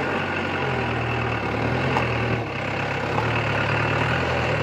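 A 4x4 jeep's engine running at low revs, its pitch stepping up and down a few times as the throttle changes.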